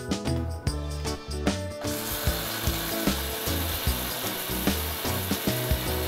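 Electric mixer grinder (mixie) starting about two seconds in and grinding soaked samba wheat in its steel jar, a steady whirring noise, over background music.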